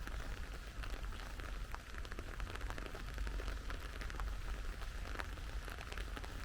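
Steady rain falling, with many separate close drops ticking sharply through an even hiss.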